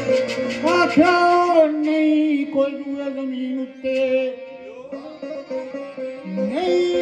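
A man sings Pahari sher verse into a microphone, holding long notes that bend up to their pitch. A sitar and harmonium accompany him, with quick sitar strums at the start over a steady harmonium drone.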